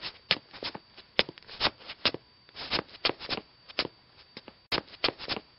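A series of short, sharp clicks and taps at irregular intervals, some in quick clusters of two or three, over a faint steady hiss.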